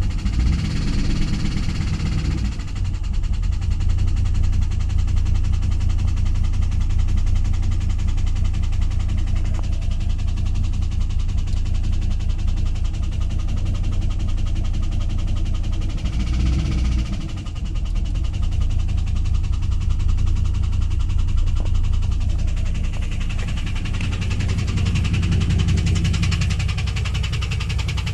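LS1 5.7-litre V8 of a 2001 Pontiac WS6 running with a ticking/knocking noise; its note rises briefly at the start, again about 16 seconds in, and near the end. The tick came on after the engine ran out of oil and lost oil pressure, then was refilled.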